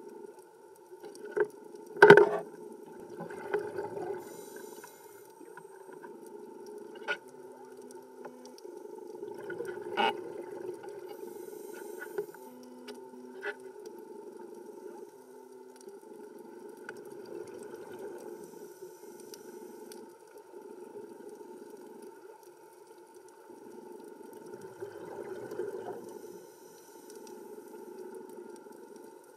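Underwater ambience of a scuba dive: regulator breathing and exhaled bubbles swelling and fading in slow cycles every seven or eight seconds, over a steady hum. A few sharp clicks come through, the loudest about two seconds in.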